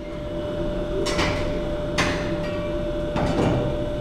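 Blacksmith's forge running, a steady hum and rush of air, with a few sharp metallic clanks of tools being handled at the hearth. The workshop noise rises in level over the first second.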